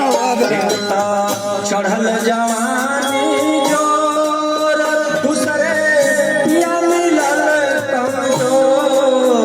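Purvi folk song: instrumental music with melodic instruments and tabla-style drumming, a singing voice weaving in and out.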